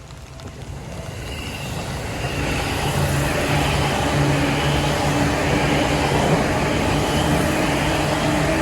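Seibu Shinjuku Line electric train approaching and passing through a level crossing on rain-wet track, growing louder over the first three seconds and then staying loud and steady.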